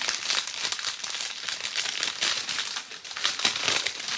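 Small plastic bags of diamond-painting drills crinkling and rustling as they are handled and opened, a dense run of irregular crackles.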